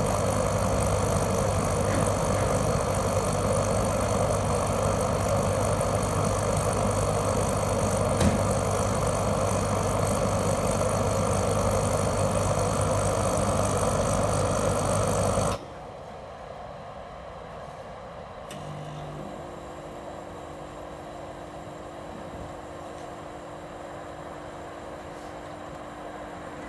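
Orion ecodan HCM10 kerosene jet heater running, its burner and fan making a steady rushing noise, with one brief click partway through. About halfway, the sound drops suddenly to a much quieter steady run with a faint hum.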